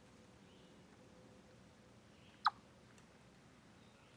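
A chipmunk giving one short, sharp, high chip call about two and a half seconds in, over a faint steady hiss.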